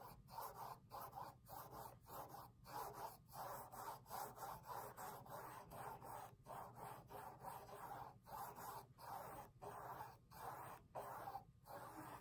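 Paintbrush dragged back and forth over a stretched canvas while a second coat of paint goes on: a soft, scratchy rubbing in regular strokes, about one and a half a second.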